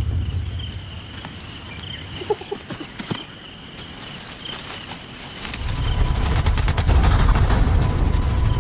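Crickets chirping in a steady high-pitched rhythm, about two chirps a second, over a low rumble that drops away early and then swells up loudly about five and a half seconds in.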